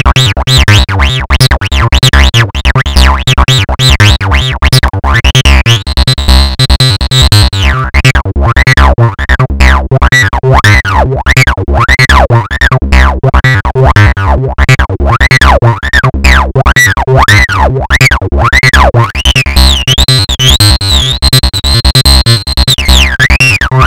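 Software-synthesized TB-303-style acid bassline looping in fast repeating notes, with a resonant filter sweeping up and down over them.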